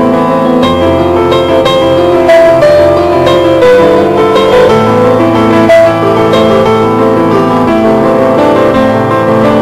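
Background music: a piano playing a melody over held chords.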